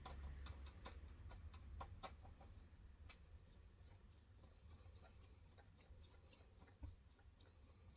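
Faint, irregular clicks and ticks of a screwdriver tightening a small bolt into its nut on a desk fan's front guard, denser in the first few seconds.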